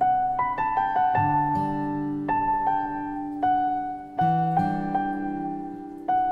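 Slow, gentle piano music: a melody of single ringing notes over low held bass notes, with new notes struck every half second to a second.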